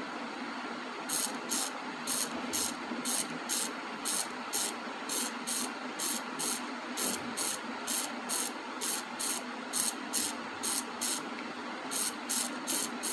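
Small hobby servo motor buzzing in short bursts, about two a second, as it steps back and forth under joystick control, over a steady hiss.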